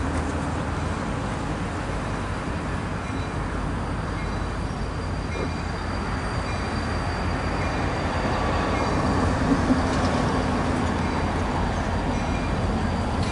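EMD GP39-2 diesel locomotive shoving a loaded covered hopper car slowly along a spur: a steady low engine rumble mixed with the car's wheels rolling on the rails, growing a little louder past the middle as the car comes closer.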